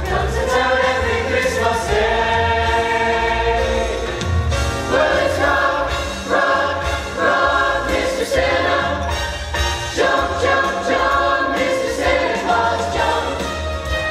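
A high school show choir singing a Christmas song in phrases of about a second each, over an accompaniment with a low bass line.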